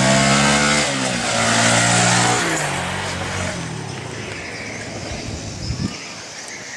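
Engine of a passing motor vehicle, loudest in the first two seconds or so, its pitch dropping twice as it goes by and then fading away. A short thump near the end.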